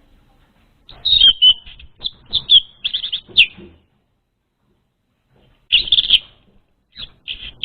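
Orange-headed thrush song played as a lure: quick runs of high, chattering whistled notes in short phrases. There is a run of several phrases in the first few seconds, then a burst about six seconds in and another near the end.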